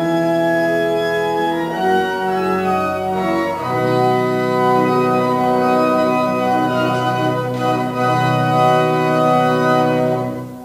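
Church organ playing slow, sustained chords, moving to new chords about two and four seconds in, then breaking off suddenly at the very end.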